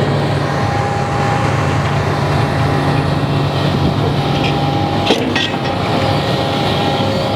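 Heavy construction machine's engine running steadily, with a few sharp clanks about five seconds in.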